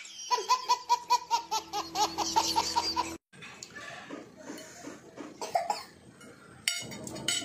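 A baby laughing in a long run of quick, rhythmic giggles, about five a second, that cuts off abruptly about three seconds in. Fainter scattered sounds follow.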